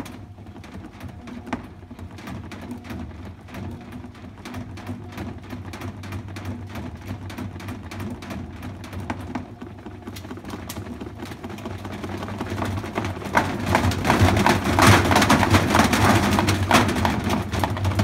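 Washing machine tub driven by its motor under inverter control, with a weight loaded inside: a steady motor hum with a fast stream of rattling clicks. It grows markedly louder about thirteen seconds in.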